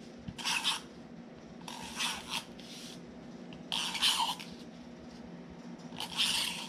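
Cardstock being handled while tape is put on its back: about five short scratchy rustles of paper rubbing and sliding, with a faint low hum behind.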